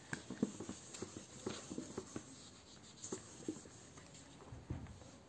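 Whiteboard duster rubbed back and forth across a whiteboard, wiping off marker writing in a series of short, faint brushing strokes, with a dull knock near the end.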